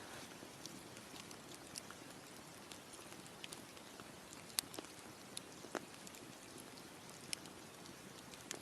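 Wood campfire crackling: irregular sharp pops and snaps over a soft steady hiss, with a few louder pops through the middle.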